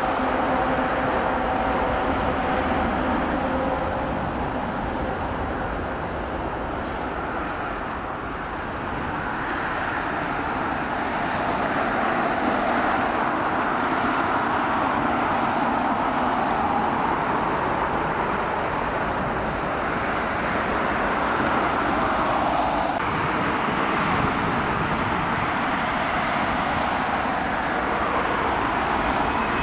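Jet engines of a Boeing 737-300 running at taxi thrust: a steady jet whine and rumble that fades slightly for a few seconds, then grows again. Near the end a higher whine begins to rise as the engines start to spool up for takeoff.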